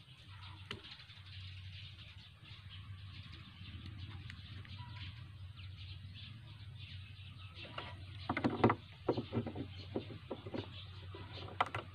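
Blue plastic trigger mechanism being handled and set down on a wooden table: light plastic clicks, then a cluster of sharper clicks and knocks about eight seconds in and a couple more near the end, over a steady low hum.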